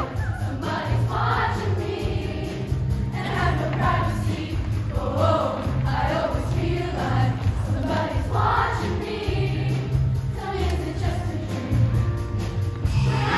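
Middle school show choir singing over an accompaniment with a heavy bass line and a steady beat.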